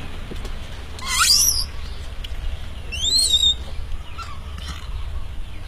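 Two loud animal calls about two seconds apart, each a short whistle sliding upward in pitch, over a steady low rumble.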